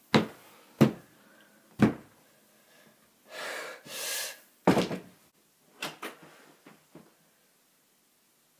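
Banging on a closet door from the inside to break out: three heavy thumps about a second apart, a rustling swish, then another thump and a few lighter knocks.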